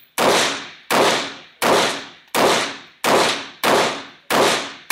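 Pistol fired in steady slow fire: seven shots in about five seconds, one roughly every 0.7 s, each crack followed by a short fading echo.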